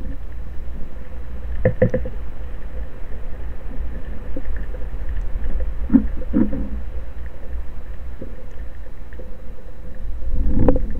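Underwater audio from a camera housing on a speargun: a steady low rumble of water against the housing, with a few dull knocks about two seconds in and twice around six seconds.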